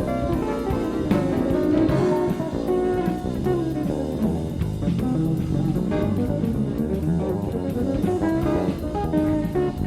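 Live jazz-fusion band playing, with electric guitar to the fore over electric bass and drum kit, heard from a cassette tape recording of the concert.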